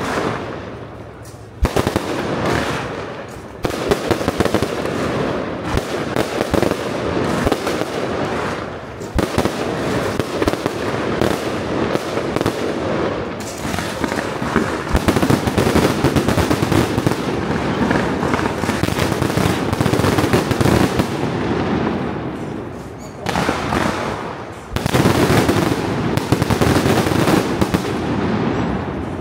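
Firecrackers going off in a dense, continuous crackle, with a few brief lulls.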